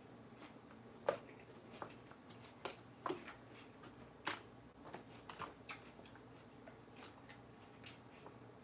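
Close-up chewing of crunchy salad lettuce: irregular crisp crunches and mouth clicks, the sharpest about a second in and again around three and four seconds.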